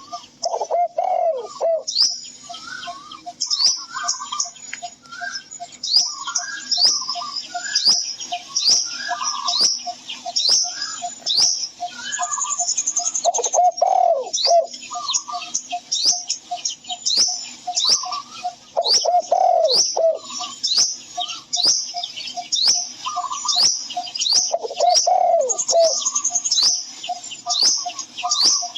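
Birdsong: many quick, high, repeated chirps over a steady run of short low notes, with a lower cooing call four times, like a dove.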